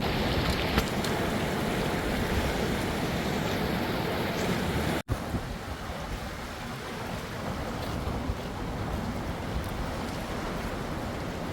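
Steady rush of flowing river water. It breaks off for an instant about five seconds in and carries on slightly quieter, with a few faint clicks.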